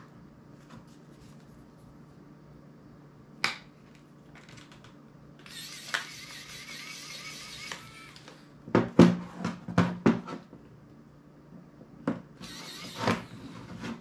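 Small clicks, knocks and scraping as a precision screwdriver works on an ASUS ZenFone smartphone and its parts are handled on a table. There is a sharp click a few seconds in, a scraping stretch of about two seconds, then a quick run of clicks and knocks, and a shorter scrape near the end.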